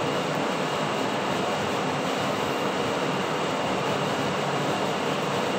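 Steady, unchanging hiss and rumble of background noise with a faint high whine running through it; no distinct eating or handling sounds stand out.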